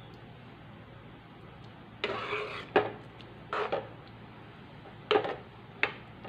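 Steel ladle scraping and clinking against a steel pan while stirring thick dal: a few short scrapes and a couple of sharp clinks, starting about two seconds in.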